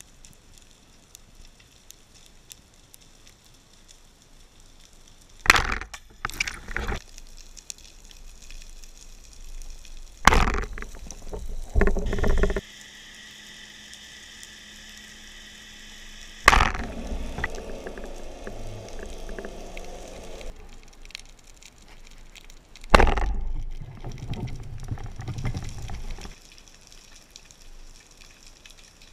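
Underwater sound through an action camera's waterproof housing on a speargun: a faint water hiss broken by about six sudden rushes and knocks, with a steady hum for a few seconds in the middle.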